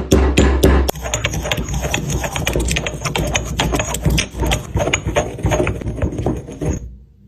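A steady beat for about a second, then rapid, irregular clicking and tapping that stops near the end.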